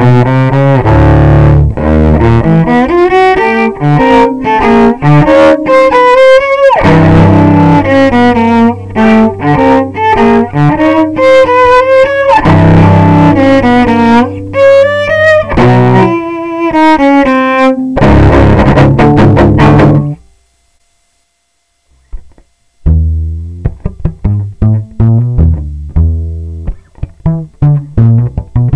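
Acoustic cello played with the bow, heard straight from a Realist bridge pickup with no microphone, in a melodic passage of held notes with one sliding shift. The pickup has been reinstalled with a luthier's adjustments. The playing stops about 20 seconds in, and after a short silence plucked pizzicato notes follow, this time through the pickup's standard installation.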